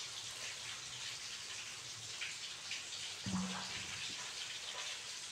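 Food cooking on the stove: a steady crackling hiss. A single dull knock about three seconds in.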